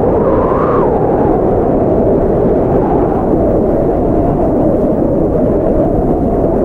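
Blizzard wind: a steady, deep rush of wind noise whose whistling edge rises in pitch about half a second in, sinks again, and starts to rise once more near the end.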